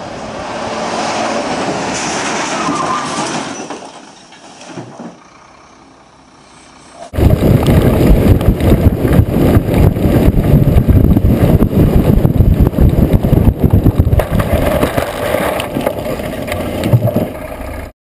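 Flatbed lorry driving: for the first few seconds it swells and fades past, then about seven seconds in the sound jumps to a loud, rough rumble and rattle heard from on board the moving lorry, right beside its load, until it cuts off near the end.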